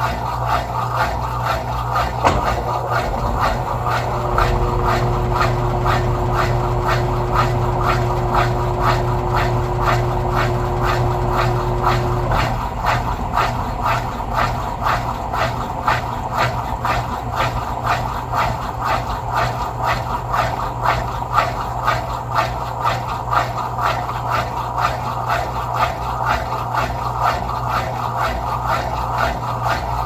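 Electrolux Turbo Economia LTE06 6 kg washing machine running a wash cycle: a steady hum with a regular beat of strokes, a few a second. An extra steady tone comes in about four seconds in and stops about twelve seconds in.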